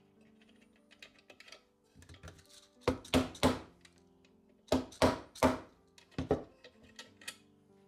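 A metal bolt clicking and tapping against a steel T-nut set in a wooden jig as it is fitted by hand, in clusters of two or three sharp clicks. Quiet background music plays underneath.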